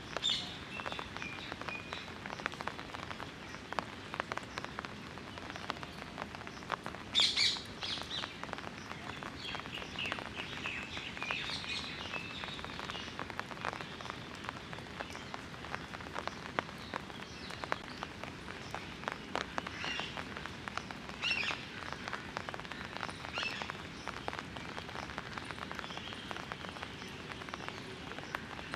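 Light rain drizzling steadily with many small raindrop taps, and scattered short bird chirps now and then, the loudest a little after seven seconds in.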